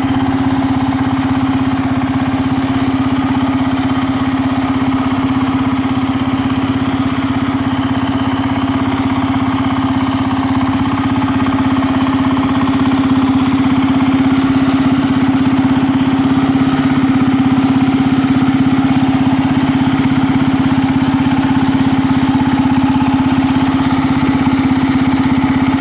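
Small engine of a John Deere 4020 narrow-front mini farm tractor running steadily with an even drone, getting a little louder about halfway through.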